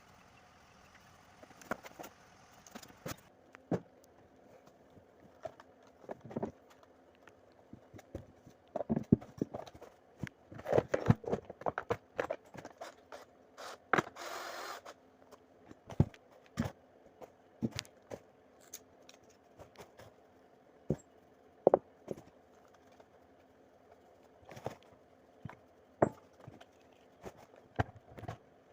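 Irregular knocks, taps and scrapes of wooden pieces and hand tools being handled during woodworking, with a brief rasping stroke about halfway through, over a faint steady hum.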